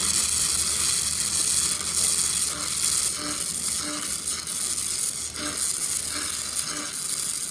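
Electric arc welding, a steady high crackling hiss.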